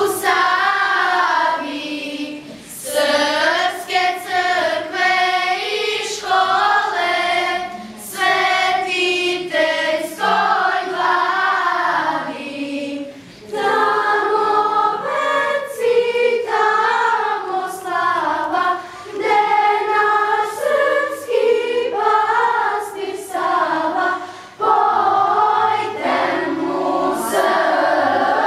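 A school choir of girls singing together, phrase after phrase, with brief breaths between phrases.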